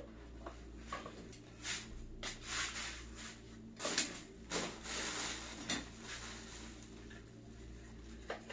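Light knocks, rubs and rustles of plastic and mesh office-chair parts being handled, in a few short bursts between about two and six seconds in.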